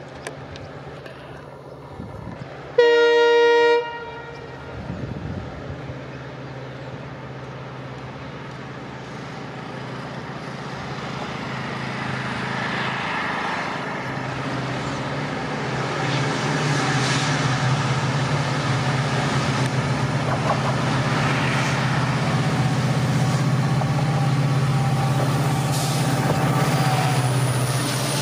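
WDP4D diesel-electric locomotive (EMD 16-cylinder two-stroke engine) sounding one horn blast of about a second, then its engine running as the train approaches, growing steadily louder as it draws up and passes close by.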